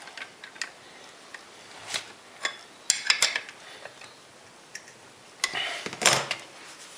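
Hard objects being handled: a scatter of clicks and knocks of metal and hard plastic, with a longer rattling clatter about five and a half seconds in.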